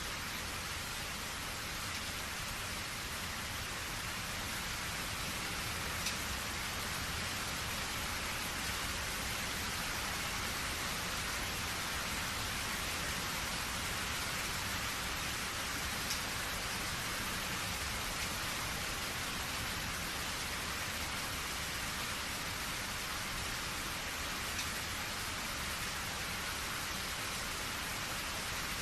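Steady rain falling on surfaces, an even hiss with a few louder single drops landing about 6, 16 and 25 seconds in.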